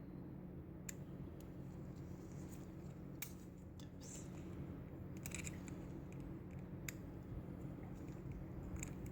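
Snap ring pliers removing a steel snap ring: faint scattered metal clicks and small scrapes, about eight in all, over a steady low hum.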